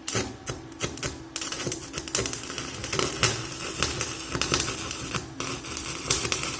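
Electric arc of a Topshak ZX7-250 mini inverter stick (MMA) welder. A few separate crackles come as the electrode is struck to start the arc. From about a second and a half in, the arc holds and the weld runs with steady, irregular crackling.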